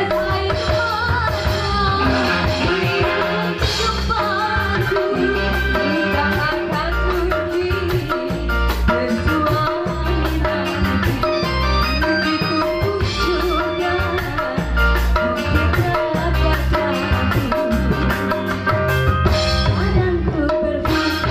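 Live dangdut band music: electric guitar and drums with a steady beat, and a woman singing into a microphone over the band.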